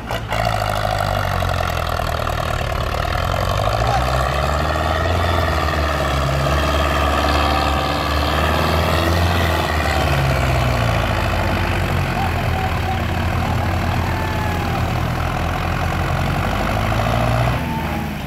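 Tractor diesel engine labouring under heavy load as it pulls an overloaded trolley, its speed rising and falling.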